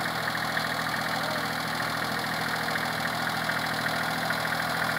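VST Shakti MT 224 compact tractor's diesel engine running steadily while working a boom sprayer.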